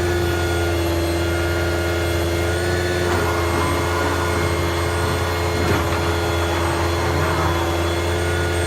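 Ford F-550's V10 gas engine running steadily with the PTO engaged and driving the hydraulic pump: a low, even drone with a steady whine over it, and a rougher mechanical texture joining about three seconds in.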